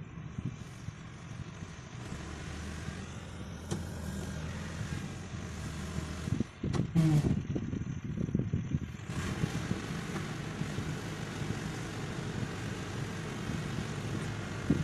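Diesel engine of heavy road-construction machinery running steadily, with a short burst of louder knocking and rumbling about seven seconds in. The sound grows fuller from about nine seconds in.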